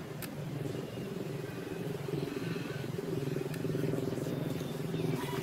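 A small engine running steadily at idle, with an even, rapid pulsing, the kind of sound a motorcycle idling makes. A few faint clicks sit over it.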